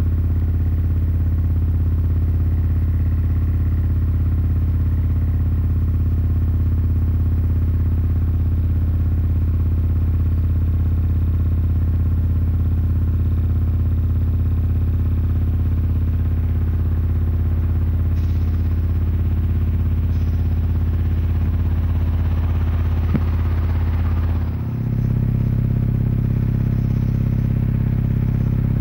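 Loud, steady low electrical hum: interference picked up by the camcorder from the high voltage of the overhead catenary, which drowns out the yard sounds. The hum briefly dips and shifts in tone near the end.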